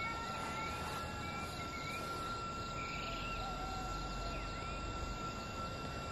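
Crickets keeping up a steady, unbroken high trill over low outdoor background noise, with a few short chirps sprinkled through.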